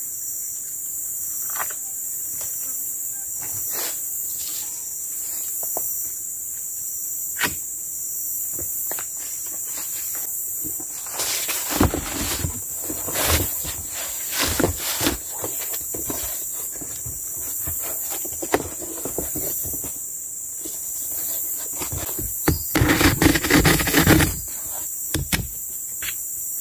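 Steady high-pitched buzz of forest insects, with bursts of rustling, scraping and knocking from cardboard sheets being handled and fitted to a stick frame, loudest about halfway through and again near the end.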